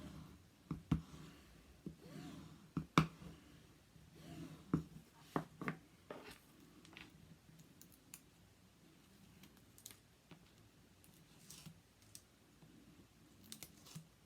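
Paper rustling and crinkling with scattered small clicks and taps of hands and tools on a worktable, as cover paper is folded and pressed around a binder corner. The clicks are most frequent in the first six seconds and only occasional after that.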